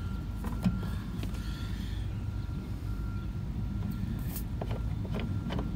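Steady low mechanical rumble, with a couple of light metallic clicks from a brass valve core removal tool being handled on an AC service valve.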